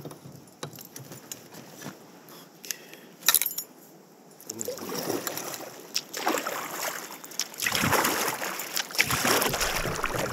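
Carbon kayak paddle strokes in calm water: a swishing dip and pull about every one and a half seconds from about halfway through. Before that, a few light clicks and knocks.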